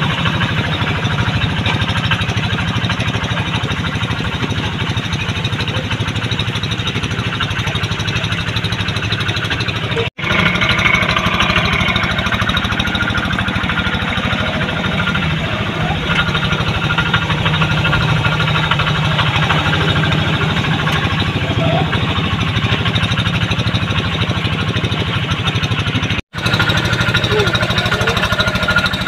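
Two-wheel hand tractor's single-cylinder diesel engine running steadily under load while pulling a moldboard plough through wet paddy mud, with a rapid, even beat. The sound drops out for an instant twice.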